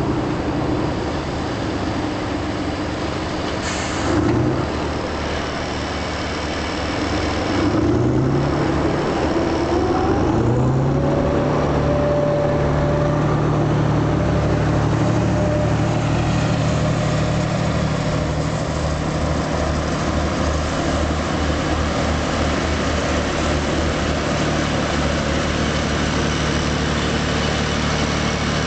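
Rába-Steiger articulated tractor's diesel engine working under load, pulling a disc roller over a silage pile. Its pitch rises three times in the first ten seconds or so, then holds steady for the rest. There is a brief hiss about four seconds in.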